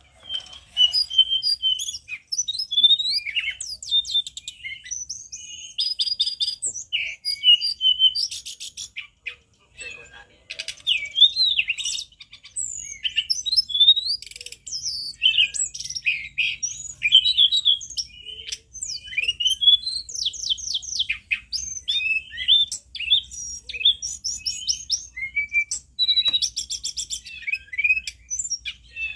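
Male hill blue flycatcher (tledekan gunung) singing loudly and without let-up: a long, varied run of high whistled notes, slurred glides and rapid trills, with a brief pause about ten seconds in.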